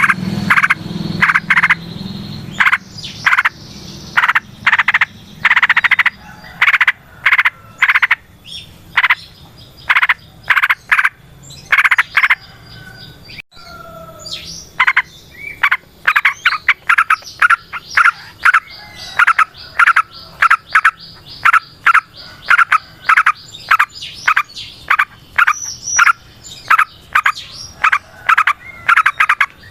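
Frogs croaking in a long rhythmic series of short, rasping calls, about two a second at first and quickening to about three a second after a brief pause near the middle, with a few faint whistled bird notes.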